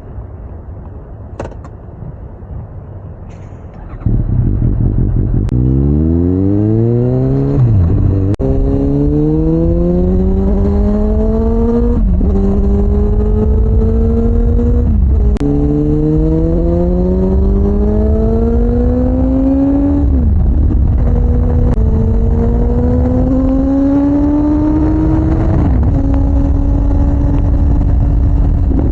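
Suzuki GSX-S750's inline-four engine, a lower rumble at first, then much louder from about four seconds in as the bike accelerates. Its pitch climbs in each gear and drops sharply at each of about five upshifts, climbing more slowly in the higher gears.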